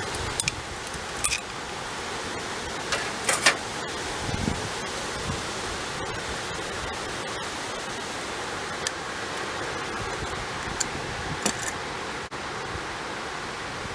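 Steady hiss with a few scattered light clicks and clinks, the loudest a quick pair about three seconds in, as small tail light parts are handled.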